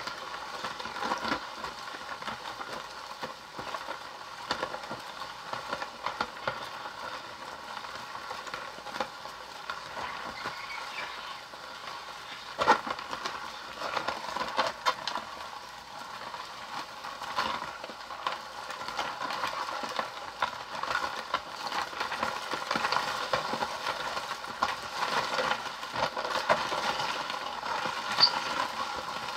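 Toy ice cream cake maker being hand-cranked steadily: a continuous rattling churn of its plastic mechanism with many small clicks, the mix inside already crunchy as it freezes.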